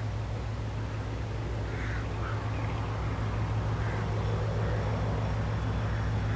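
Steady low drone of an approaching diesel locomotive hauling the Sperry rail-testing train, with a duck quacking a few times faintly around two to four seconds in.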